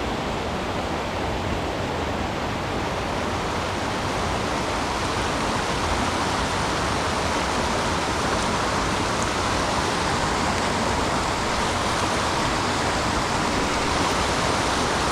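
Steady rush of a mountain stream running high after typhoon rains.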